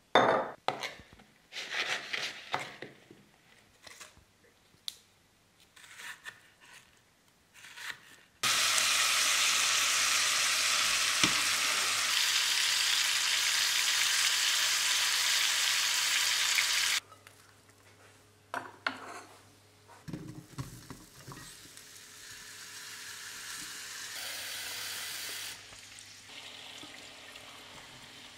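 Meat searing in a cast-iron pan with herbs and garlic: a loud, steady sizzle that starts about a third of the way in and cuts off suddenly past the middle. Before it come scattered clicks and knocks. After it there is a quieter sizzle as meat, onion and courgette are stirred in the pan.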